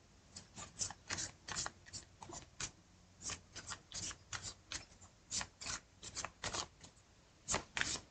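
Tarot cards being shuffled by hand: a quick run of short, soft card-slapping strokes, about three or four a second, with a brief pause near the end.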